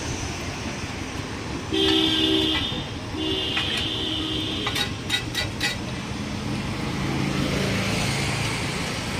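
Vehicle horn honking twice, a short toot and then a longer one of about a second and a half, over steady street traffic noise. A few sharp clicks follow.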